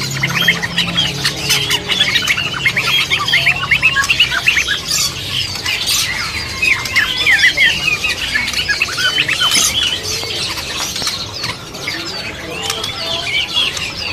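Many caged songbirds chirping and whistling together: a dense, overlapping chorus of quick high calls that thins out a little past the middle and picks up again near the end.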